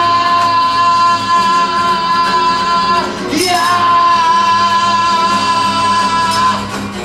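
A male vocalist wails two long, high held notes into a microphone, each lasting about three seconds, over a steady low musical backing.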